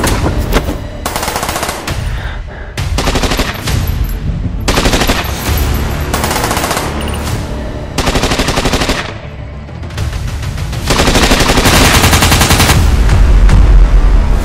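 Automatic gunfire in repeated bursts of one to three seconds with short pauses, then one long continuous burst in the last few seconds, the loudest of all.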